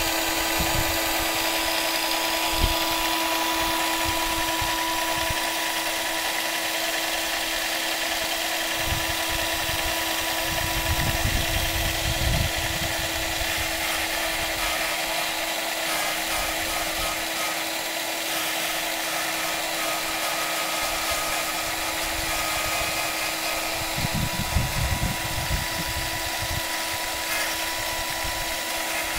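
Small motor of a scratchbuilt G-scale rotary snowplow spinning its 5-inch metal blade at high speed, a steady drill-like whine, as snow is fed into it by hand and thrown out. Irregular low thumps come about ten seconds in and again near the end.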